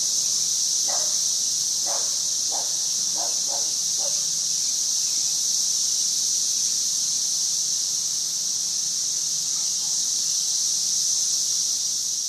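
A chorus of cicadas buzzing in a loud, steady, high-pitched drone. A few short, lower chirps come through in the first four seconds.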